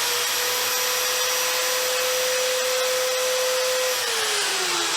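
Electric belt sander, mounted as a stationary belt grinder, running at full speed with a steady whine, then switched off about four seconds in, its pitch falling as it coasts down.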